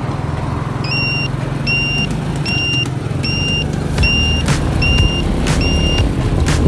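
Motorcycle engine running steadily on the road with a constant low hum. Over it an electronic beeper sounds seven times, one short, clean high beep about every 0.8 seconds, starting about a second in.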